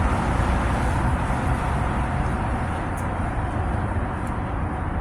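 Steady vehicle noise: a low, even rumble with hiss and no clear pitch or rhythm.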